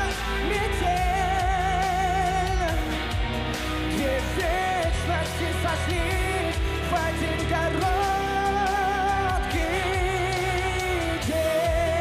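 Male pop singer singing a ballad, holding long notes of about two seconds each with wide vibrato, over pop backing music with a steady beat.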